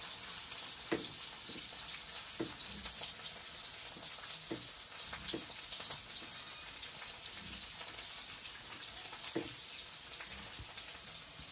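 A wok heating on a lit gas stove burner: a steady hiss with scattered light crackling, and a few soft knocks.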